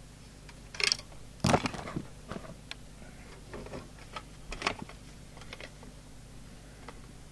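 Handling noise: scattered clicks and light knocks as the opened SWR meter's metal chassis, with its leads attached, is picked up and turned over on the bench. The loudest knock comes about a second and a half in.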